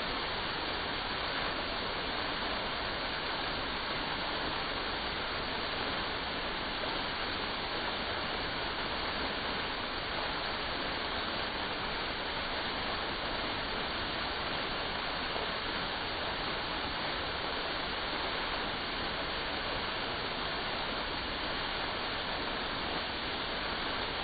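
Artificial waterfall splashing into a pond: a steady, even rush of falling water.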